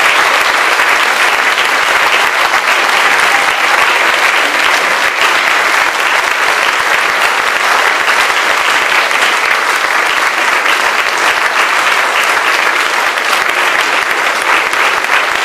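Audience applauding steadily after a live song, a dense patter of many hands clapping with no let-up.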